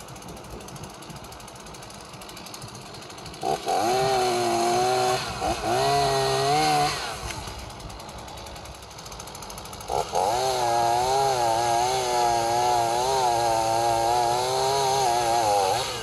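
Chainsaw cutting overhanging tree branches: quieter at first, it revs up hard about three and a half seconds in for a few seconds, drops back, then runs at full revs again for about five seconds from ten seconds in, with a brief dip near the end.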